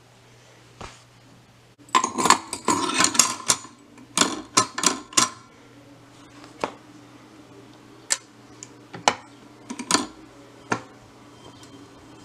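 Webster-Chicago 346 record changer mechanism cycling under the deck: a burst of rapid metallic clicks and clatter about two seconds in, then a few single clicks spaced about a second apart, over a low steady hum.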